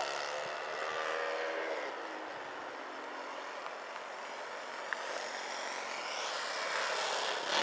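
Radio-controlled model aeroplane making a low pass. Its motor and propeller drone drops in pitch over the first couple of seconds as it flies past, fades to a hiss, then rises again near the end as it comes back close.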